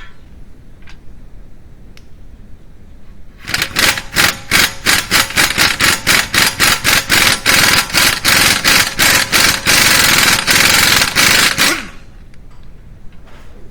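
Impact wrench hammering on a front hub bolt, in pulses about five times a second, running steadily for the last two seconds before cutting off suddenly.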